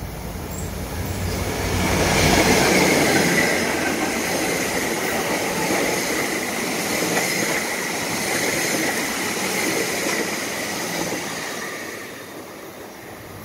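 A diesel-hauled commuter train passing close by. The locomotive's engine hum gives way to the rumble and clatter of bilevel coaches on the rails, loudest about two seconds in, with a steady high squeal from the wheels. It fades near the end.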